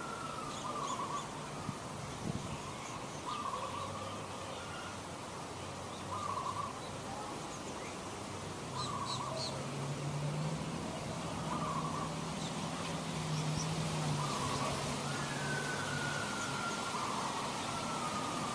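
A bird repeating a short call about every two seconds, with faint higher chirps from other birds. A low steady hum sets in underneath about four seconds in.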